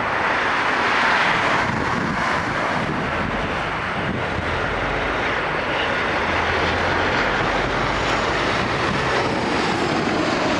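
Jet engine noise from an Airbus A340-600, with its four Rolls-Royce Trent 500 engines, taxiing after landing: a loud, steady rushing whoosh that is strongest about a second in.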